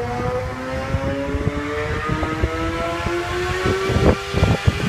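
A motor vehicle's engine running steadily, its pitch rising slowly, with low thumps of wind and handling noise on the microphone.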